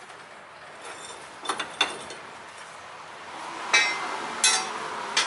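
Steel hand tools and bolts clinking and knocking against metal while a homemade crankshaft-pulley puller is fitted. A few light clinks come about a second and a half in, then three louder, briefly ringing clinks in the last second and a half.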